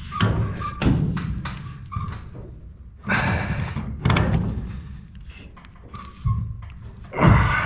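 Pipe wrench turning a threaded 1-inch black-iron gas pipe: irregular clunks and knocks as the wrench jaws bite and shift, with scraping in between.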